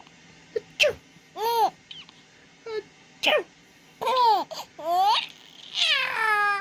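Baby laughing in a run of high-pitched, rising-and-falling squeals and giggles, set off by an adult's fake sneezes, with a few short sharp bursts between the peals.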